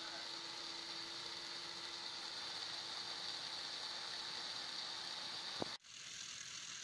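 Battery-powered Plarail-type toy locomotive's motor and plastic gears whirring steadily while it lies derailed on its side, its wheels spinning freely. The sound cuts off suddenly near the end.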